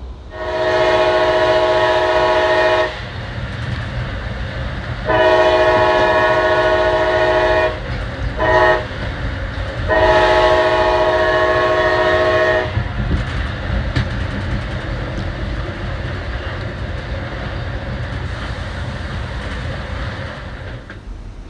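Amtrak passenger locomotive's horn sounding the grade-crossing signal: two long blasts, a short one and a final long blast. Underneath is the steady low rumble of the train running on the rails.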